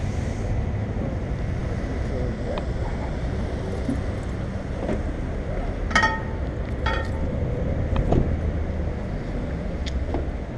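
Steady low rumble through a helmet-mounted camera's microphone, with a few soft knocks and two short metallic clinks, like keys, about six and seven seconds in.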